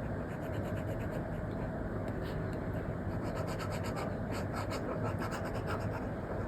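Apple Pencil Pro tip scratching in many quick, short strokes on an iPad's paper-like matte screen protector, the strokes coming thickest in the second half, over a steady background hiss.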